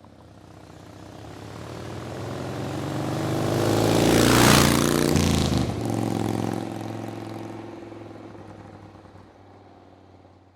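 A motor vehicle's engine passing by: it grows louder to a peak about four and a half seconds in, then fades away as it recedes.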